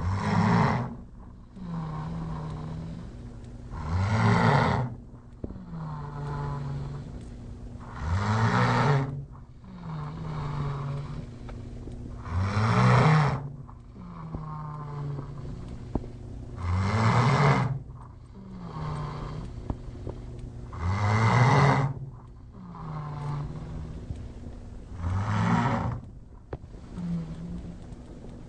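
A sleeper snoring loudly and regularly: a loud snore about every four seconds, seven in all, with a softer, pitched breath sound in between each.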